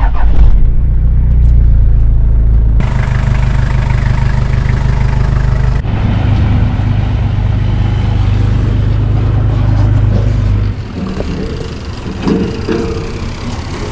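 A vehicle engine running, heard from inside the cab. A few seconds in, a steady rushing spray of water starts over a low pump hum as a trailered boat is washed down with a hose.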